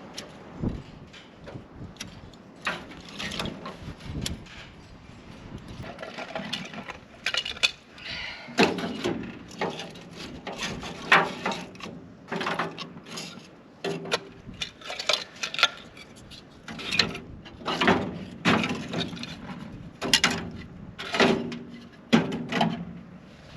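A run of irregular knocks and clatters, wood and utensils handled and struck, a few per second.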